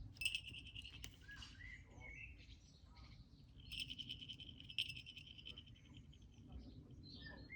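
Faint bird calls: two long, high, buzzy trills, one at the start and one about halfway through, with short gliding chirps between them and near the end. These are wild songbirds singing and a saker falcon calling back at them.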